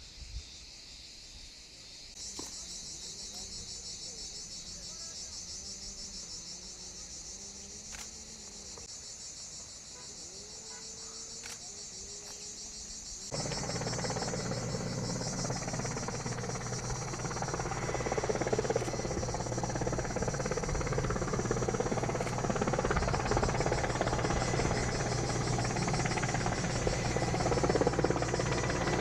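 Insects shrilling in a steady pulsing chorus. About halfway through, a louder steady machine drone with a low hum cuts in abruptly and continues: most likely a firefighting helicopter's engine and rotor.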